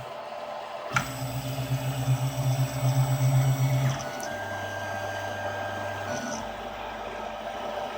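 RepRap 3D printer's stepper motors humming and whining as the print head moves at the start of a print job, with a click about a second in. The hum pulses and is loudest until about four seconds in, then changes to a steadier tone with a thin high whine, and drops again a couple of seconds later as the moves change.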